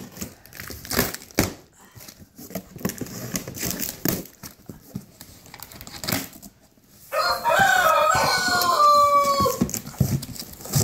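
Cardboard box flaps and packaging being opened and handled, with scattered rustles and knocks. About seven seconds in, a rooster crows once: a stepped call of about two and a half seconds that drops in pitch at the end.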